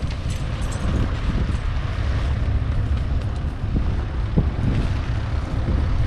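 Wind buffeting the microphone: a loud, uneven low rumble with a hiss above it, and a single sharp knock about four seconds in.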